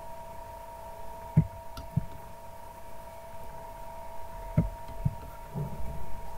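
Dull low thumps in two pairs, a few seconds apart, over a steady two-tone electrical hum.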